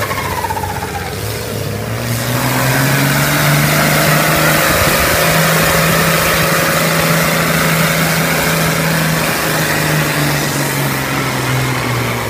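John Deere farm tractor's diesel engine running flat out under heavy load while pulling a weight-transfer sled. Its pitch climbs about two seconds in, holds steady through the pull, then sags slightly near the end as the load builds.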